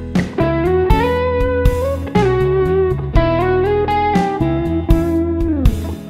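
Stratocaster-style electric guitar played fingerstyle without a pick, picking a slow blues-rock lick in E whose notes are slid into one another to imitate slide guitar, over a backing track with a bass line and a steady beat about once a second.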